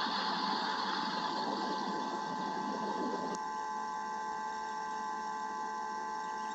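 Steady hiss of rain on a nest-camera microphone over a constant electronic whine of several thin tones. The hiss cuts off abruptly a little over three seconds in, with a faint click, leaving only the whine.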